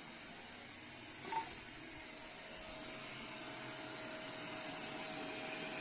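Shark Powered LiftAway vacuum running steadily, a constant airy hiss with a faint steady whine, and one short clack about a second in.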